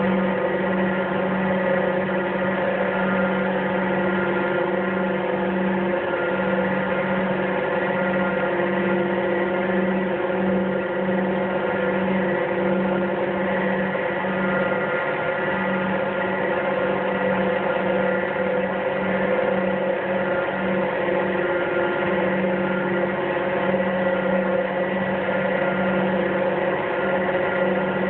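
Endless diamond wire saw running steadily while cutting through an anvil: a constant machine hum with several held tones, the lowest one wavering slightly.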